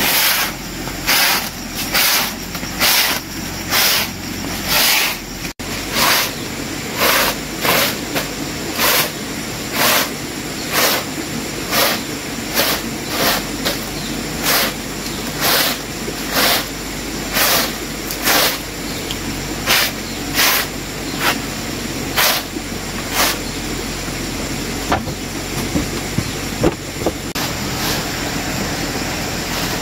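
Rhythmic rasping strokes of manual work, about one a second, that stop after about 23 seconds, over a steady low background hum.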